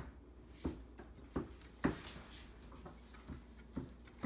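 A series of irregular knocks as two electrostatic loudspeaker stator panels are bumped together by hand against their stops, with a brief scrape near the middle.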